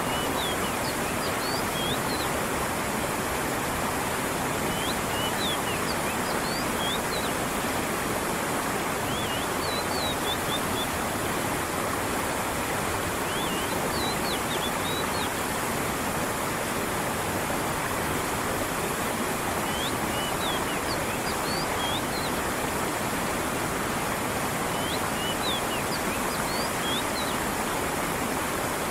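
A creek running with water falling over rocks: a steady, even rush. Over it, a small bird gives clusters of quick, high chirps every few seconds.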